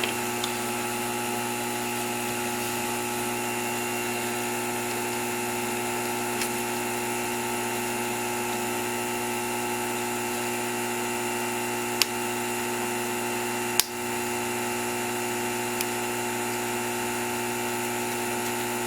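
A steady electric hum made of several fixed pitches, like a small motor or appliance running without change. Two sharp clicks stand out about two-thirds of the way through, with a few fainter ticks elsewhere.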